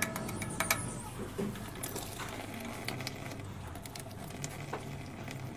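Water trickling from a small tap fed by an upturned plastic bottle and splashing onto a hand, with a few sharp clicks at the start.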